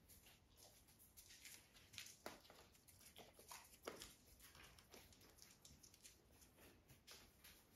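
Near silence, with faint soft rustles and light taps from cats pawing and shifting about in a towel-lined wooden crate, a handful of them between about two and four seconds in.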